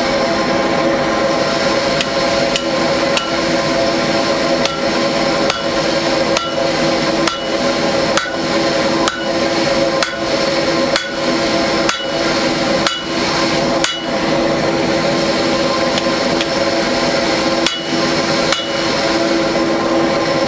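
Hammer blows on hot metal at an anvil, each with a short metallic ring, about one a second with a pause of a couple of seconds near the end. Under them runs the steady hum of the coal forge's electric blower.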